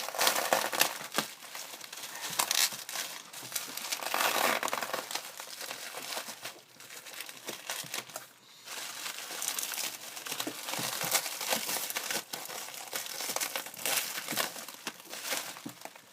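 Packing material crinkling and tearing as a shipping box is unpacked by hand, in uneven spurts with a brief lull about halfway through.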